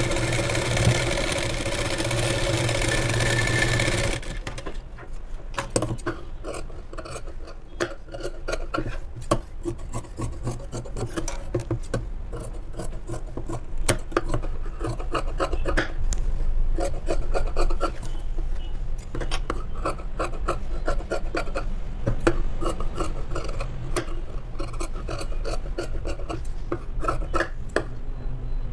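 Sewing machine running steadily, stopping abruptly about four seconds in. Then the cloth is handled and trimmed with tailor's scissors: a long run of irregular crisp snips and rustling.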